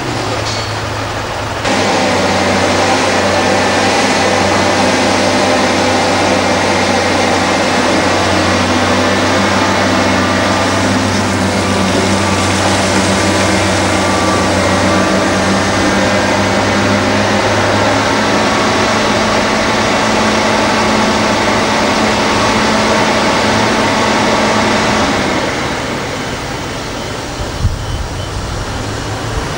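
Heavy diesel engines of a Liebherr R962 hydraulic excavator and Mercedes dump trucks running under load: a steady engine drone that grows louder suddenly about two seconds in and eases off near the end. A single knock comes near the end.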